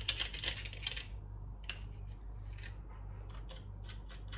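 A knife scraping and clicking against a garlic press, clearing out pressed garlic: a quick run of strokes for about the first second, then a few scattered clicks.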